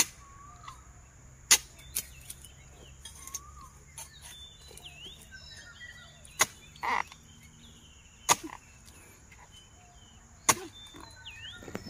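Half a dozen sharp knocks at irregular intervals, with faint whistling chirps and a steady high insect hum behind them.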